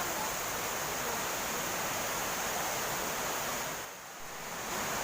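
Waterfall rushing, a steady even noise of falling water. It dips briefly about four seconds in, then comes back.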